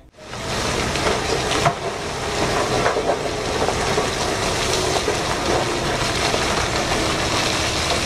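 A load of rock sliding and pouring out of a giant mining dump truck's tipped bed: a steady gritty rush with scattered small clatters over a low rumble.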